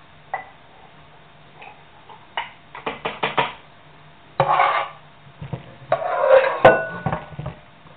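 A utensil clinking and scraping against a cooking pot and a glass jar as hot blackberry jam is spooned into the jar. A quick run of light clicks comes first, then two scraping passes, with a sharp clink that rings briefly near the end.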